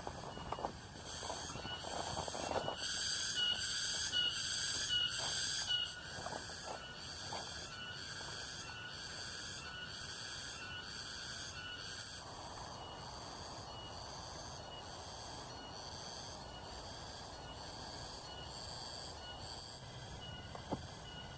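Cicadas calling in a rhythmic pulsing chorus, about two pulses a second, loudest in the first six seconds. A few footsteps sound early on, and a steady hiss joins after about twelve seconds.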